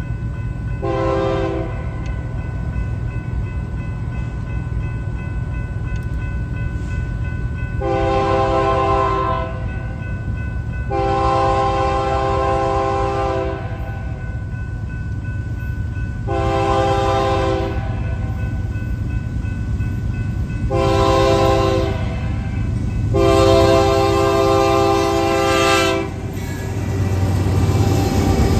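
BNSF diesel freight locomotive's multi-note air horn sounding for a grade crossing: six blasts, some short and some long, over the steady low rumble of the approaching diesel engines. The rumble grows louder near the end as the lead locomotive passes.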